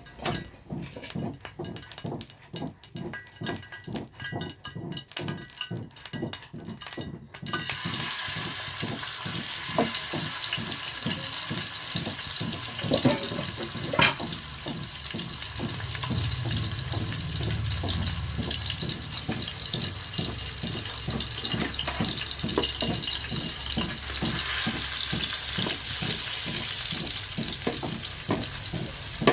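Chicken legs frying in hot oil: a steady sizzle that starts abruptly about a quarter of the way in, after a quieter stretch of rapid small clicks and crackles. A couple of sharp knocks come a few seconds after the sizzle starts.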